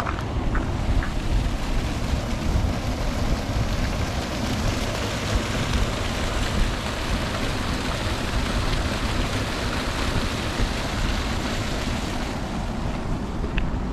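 Water rushing and churning out of a tide gate into a tidal creek: a steady hiss of foaming, turbulent water that eases off near the end.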